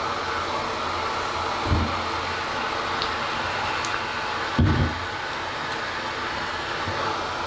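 A steady, even rushing noise, with two short dull low thumps, one about two seconds in and one about halfway.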